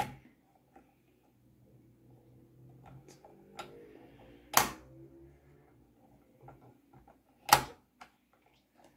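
Plastic Venus flytrap trap on a Treasure X Lost Lands Skull Island toy playset being set and sprung by hand: a few faint plastic ticks, then two sharp clicks, the first about halfway in and the second about three seconds later.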